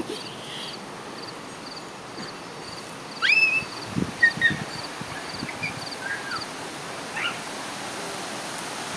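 A cricket chirping steadily, about two chirps a second, over outdoor background noise. A few short high squeaks cut in, the loudest a rising squeal about three seconds in.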